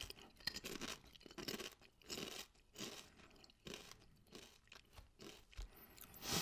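Lorenz Crunchips potato chips being chewed close to the microphone: a run of irregular crisp crunches.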